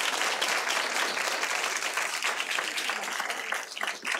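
Audience applauding, thinning to scattered claps near the end.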